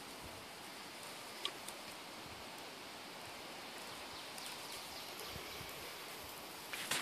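Faint steady outdoor background hiss with one sharp tick about a second and a half in, then dry grass tinder rustling and crackling near the end as the bundle is handled.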